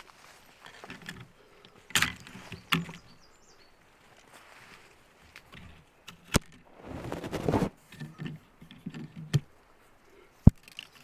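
Footsteps of a person walking on a forest trail, irregular and spaced out, with a longer scuffing crunch about seven seconds in and a sharp click near the end.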